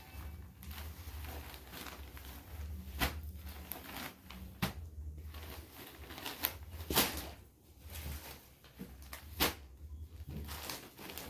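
Cotton sarees being handled by hand on a cloth-covered table: fabric rustling as a saree is folded and the next one laid down, with several short, sharp rustles and soft knocks at irregular times over a low steady hum.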